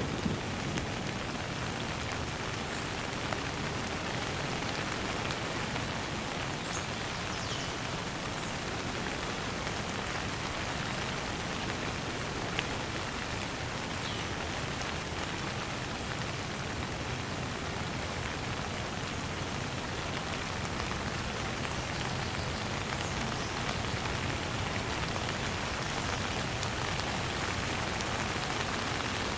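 Steady rain falling, an even hiss of drops on surfaces. A louder rumble from just before fades out in the first moment.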